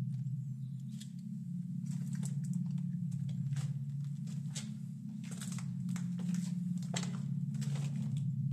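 A steady low drone, with irregular footsteps on a debris-strewn floor over it, roughly one or two steps a second.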